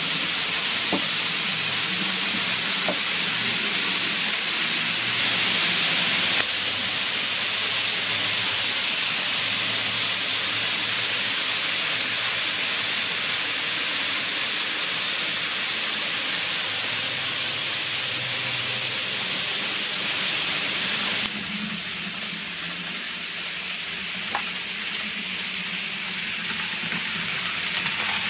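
Model trains running on a layout: a steady rolling hiss and rattle of small metal wheels on rails over a faint low motor hum. The sound changes abruptly twice, about six seconds in and again near twenty-one seconds.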